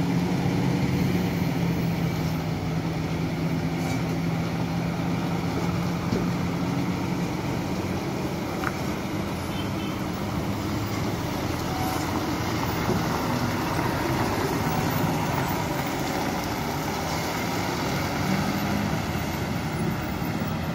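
Loaded goods lorry's diesel engine running as the lorry rounds the bend, a steady low hum that is strongest for the first eight seconds or so and then gives way to a more even road noise.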